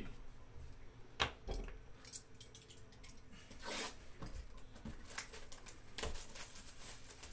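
Handling noises from a shrink-wrapped cardboard trading-card box being turned over in the hands: plastic wrap crinkling in short bursts, with scattered sharp taps and clicks, the loudest a little over a second in.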